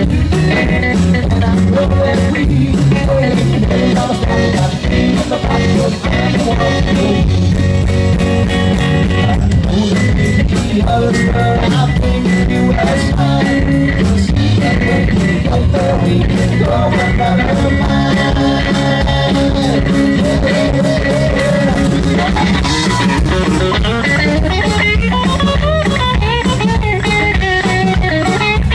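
Live rock band playing with guitar to the fore over a steady drum beat, with gliding pitched lines near the end.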